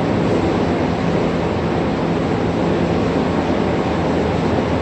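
Milwaukee core drill running steadily as it cores into a wall: a constant motor hum over an even, rough grinding noise.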